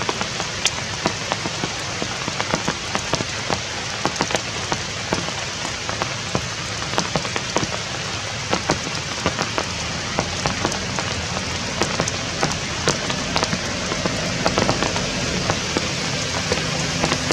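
Steady rain falling, with many separate drops ticking sharply on a nearby surface.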